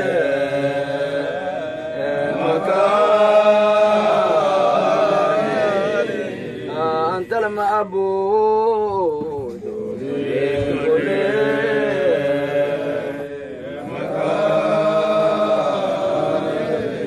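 Voices chanting a Sufi dhikr (Somali digri) in long, drawn-out melodic phrases whose pitch wavers, with short breaks between phrases.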